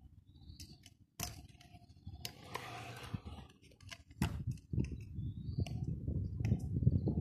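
A few sharp clicks, then from about four seconds in a low rumbling noise that grows louder, with short bird chirps over it.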